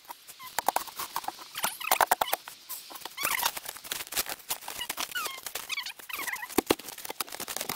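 A long steel crowbar jabbing and prying at a mower deck frozen into packed snow and ice: a run of irregular sharp knocks, scrapes and crunches, with a few short high squeaks about three to six seconds in. The deck is still frozen in.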